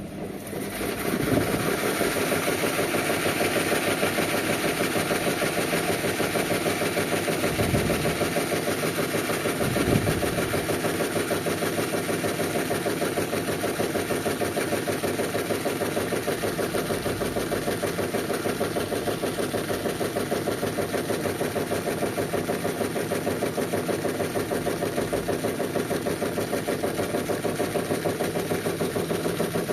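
Whirlpool washing machine running on its Quick Wash 30 cycle: the motor and drum start up about a second in, then run steadily with an even, fast pulsing.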